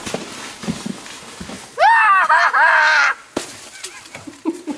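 A child's high-pitched scream, lasting a little over a second about two seconds in, with a few short knocks before and after it.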